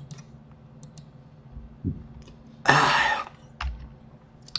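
Scattered computer mouse and keyboard clicks. About two-thirds of the way through comes a short cough, the loudest sound.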